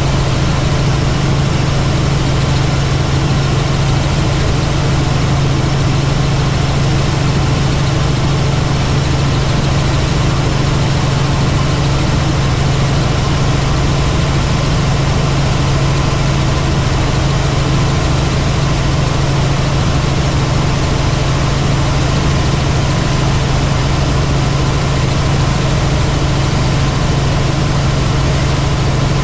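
Helicopter in flight: the engine and rotor give a loud, steady drone with a strong low hum that holds unchanged throughout.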